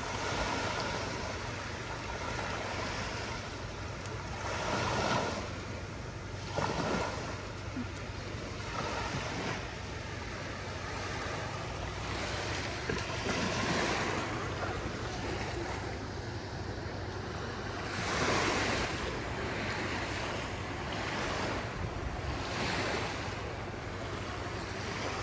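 Small waves breaking and washing up on a sandy beach, a surge every few seconds, with a steady rumble of wind on the microphone.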